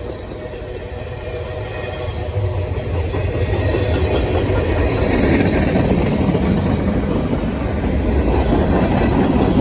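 Freight train cars rolling past on the track, wheels rumbling and clattering over the rails, growing louder a few seconds in.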